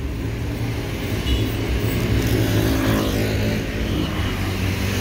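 Motor traffic on a city street: a steady low rumble, with an engine's hum that grows stronger from about two seconds in.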